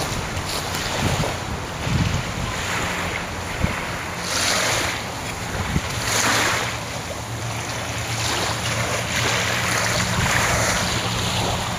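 Wind buffeting the camera microphone in gusts, a rushing noise that swells and fades every second or two.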